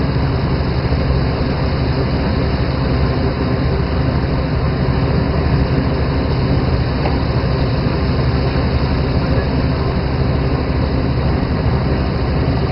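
Fishing boat's engine running steadily, with a constant rush of water spray and sea along the hull.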